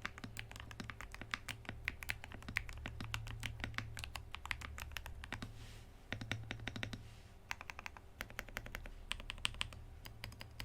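Typing on a CIY GAS67 65% mechanical keyboard fitted with Gateron Quinn switches: quick runs of keystrokes with a deep, thocky sound, broken by a couple of brief pauses, over a faint steady low hum.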